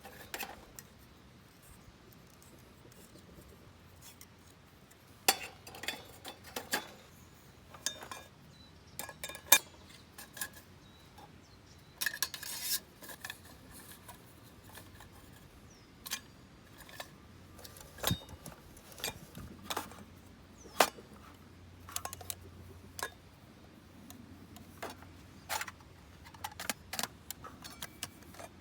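Aluminium cooker pots and lids clinking and rattling as they are handled, in scattered sharp knocks with quiet between.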